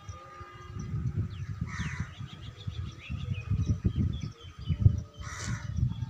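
Outdoor birds calling, with two short harsh calls about two seconds in and near the end, over an uneven low rumble of wind buffeting the microphone.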